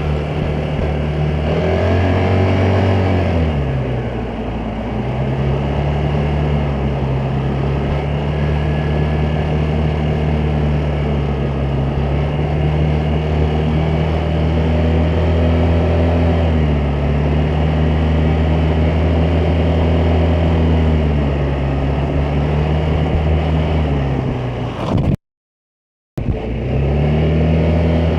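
Vespa GTS 300 scooter's single-cylinder four-stroke engine running under way. It revs up and eases off about two seconds in, then holds a steady cruising note with small dips in pitch. Near the end it drops off, cuts out completely for about a second, and comes back revving up.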